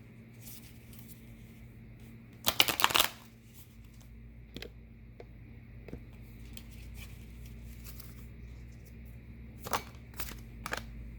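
Tarot cards being handled: one quick burst of rapid card flicking, like a shuffle, about two and a half seconds in, then a few light single clicks of cards later on over a faint steady hum.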